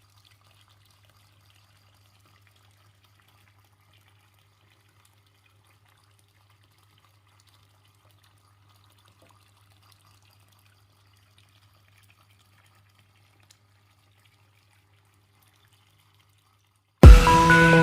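Faint water trickling from a small fountain over a low steady hum. Loud electronic music cuts in suddenly near the end.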